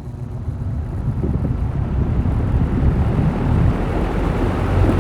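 Vintage Eskimo box fan starting up: the rush of air and motor noise builds steadily louder as the blades spin up to speed.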